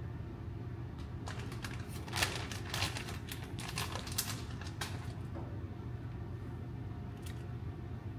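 Kitchen handling noise: a flurry of crinkles and sharp clicks for a few seconds, over a steady low hum.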